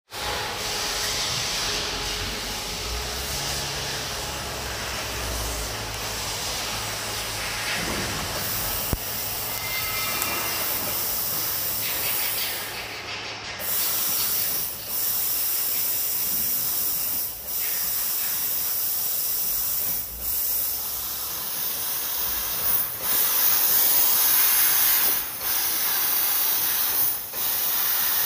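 Fiber laser cutting machine cutting stainless steel sheet: a steady high hiss of assist gas from the cutting head that breaks off briefly every two to three seconds between cuts.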